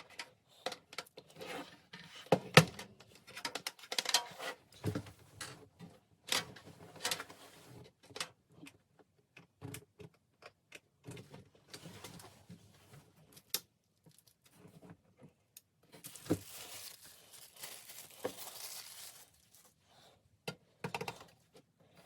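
Hands handling computer parts and their packaging: scattered small clicks, taps and knocks, with a few seconds of crinkling rustle in the second half.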